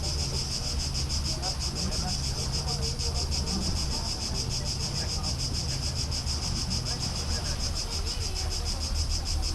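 Steady chorus of insects: a high, rapidly pulsing buzz that holds without a break, over a low rumble.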